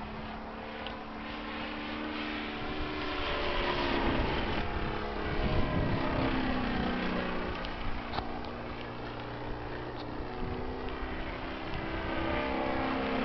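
Desert Aircraft DA100 twin-cylinder petrol engine of a large model Extra 330 aerobatic plane, running on canister mufflers and swinging a 28x12 propeller. Its pitch rises and falls as the plane manoeuvres and passes by, and it is loudest about four to six seconds in.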